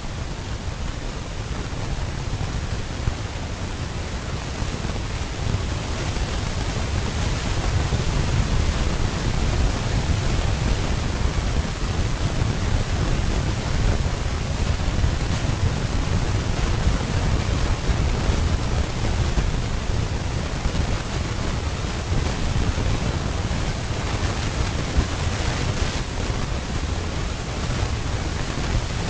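Wind buffeting the microphone: a steady, even rush of noise with a heavy, fluctuating low rumble.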